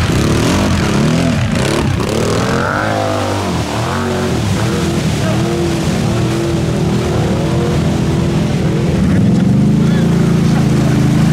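Quad bike (ATV) engines revving hard, the pitch climbing and dropping again and again as the throttle is worked; in the last couple of seconds an engine holds a steady high rev.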